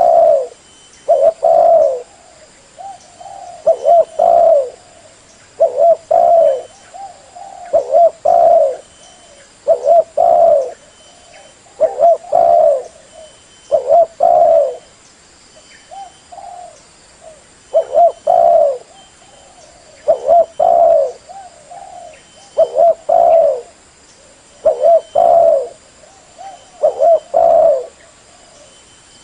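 Spotted dove cooing, a phrase of two or three coos repeated about every two seconds: a decoy bird's call used as a lure for trapping wild spotted doves.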